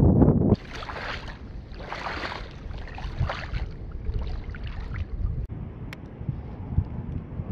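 Wind buffeting the microphone for the first half second, cutting off suddenly. Then water swishing and sloshing about once a second, like legs wading through shallow water, fading to a faint steady background near the end.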